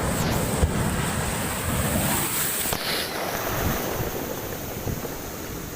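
Heavy storm surf breaking and rushing ashore, with wind buffeting the microphone. Loudest in the first few seconds, then easing slightly.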